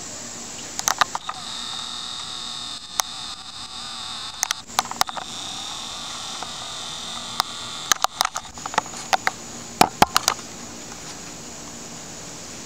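Handheld camera handling: clusters of short, sharp clicks and knocks as the camera is moved and zoomed. A steady high-pitched insect drone runs underneath.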